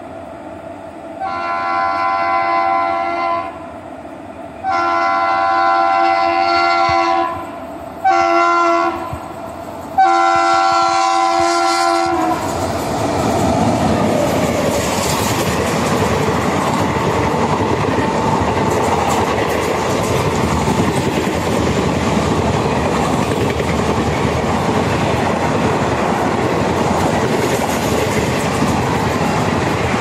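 Sachkhand Express's electric locomotive sounding its multi-tone horn in five blasts, two long, two short and one long, as it runs through the station. From about twelve seconds in, the steady rumble and clickety-clack of its coaches passing at speed takes over.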